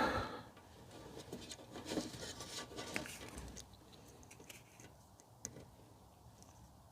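Faint rustling and scattered light clicks of speaker wires being fed through a hole in a car door, busier in the first few seconds and then only the odd click.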